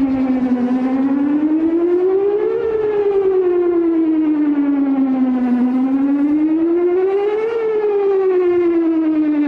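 Whelen WPS-4008 electronic outdoor warning siren sounding a wail during its monthly test, the pitch rising and falling smoothly, about one full rise and fall every five seconds.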